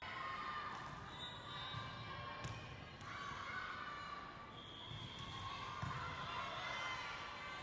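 Indoor volleyball rally: a few sharp smacks of the ball being passed and hit, over the voices of players and spectators in the gym.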